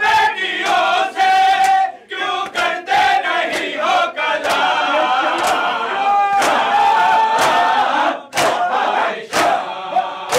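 Crowd of men chanting and shouting loudly together during matam, with sharp slaps of hands striking bare chests in a loose rhythm.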